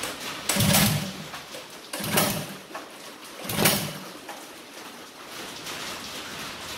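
Cold, hot-rodded Predator 212 single-cylinder go-kart engine being pull-started by its recoil rope: three short bursts of cranking about a second and a half apart, and it does not keep running. The engine is hard to start when cold.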